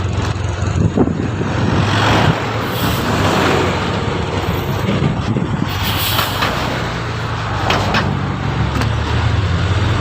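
Bus engine running steadily amid road traffic, with two broad rushes of noise about two and six seconds in.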